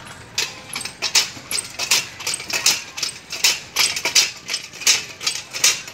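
Metal outdoor park exercise machine worked by a child, its pivots grating in a steady rhythm of nearly three strokes a second.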